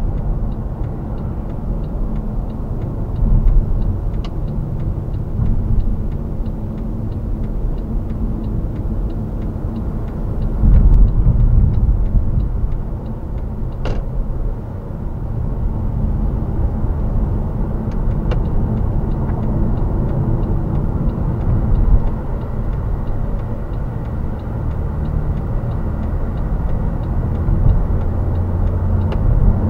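Mercedes-Benz W212 E-Class at expressway cruising speed, heard from inside the cabin: a steady low rumble of road, tyre and engine noise. It swells briefly about eleven seconds in, and there are a few faint clicks.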